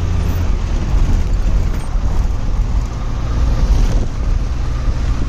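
Steady low rumble of a road vehicle driving along a road, engine and tyre noise with an even hiss over it.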